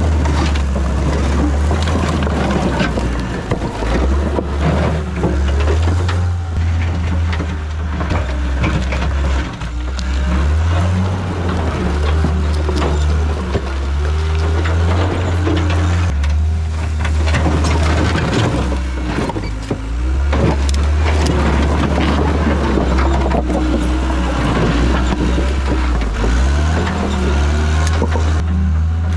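Diesel engine of a John Deere 323D tracked skid steer working under load, its pitch stepping up and down, with repeated clanks and scraping as the bucket pushes dirt and concrete. The engine revs up about three seconds before the end.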